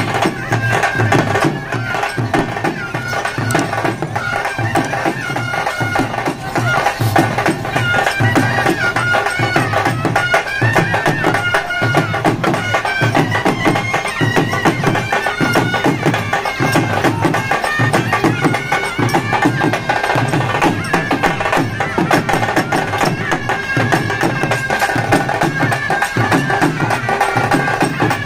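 Karnataka folk band of large drums and a nasal reed wind instrument playing together: the drums keep a steady, driving beat under a wavering, continuous melody.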